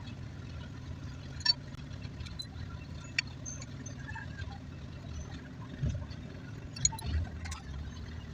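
A few light, sharp clicks and taps from alternator parts and tools being handled during disassembly, over a steady low rumble.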